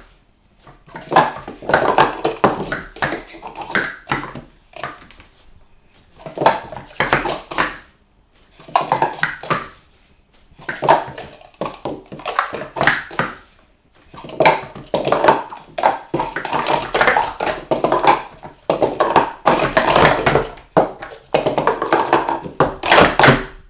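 Plastic Speed Stacks sport-stacking cups clattering rapidly as they are stacked up into pyramids and slid back down into columns. The quick clacks come in runs of a few seconds, with short pauses between.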